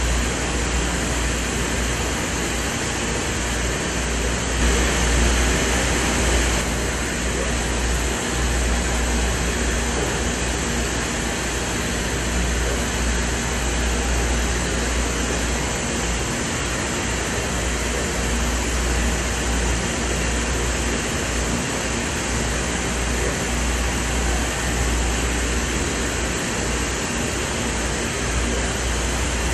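UV flatbed printer running: a steady mechanical noise with a low hum, and a brief louder hiss about five seconds in.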